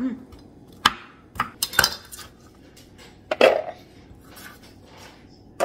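A handful of separate sharp knocks and clinks of a kitchen knife and utensils against a wooden cutting board, the loudest about three and a half seconds in with a short ring.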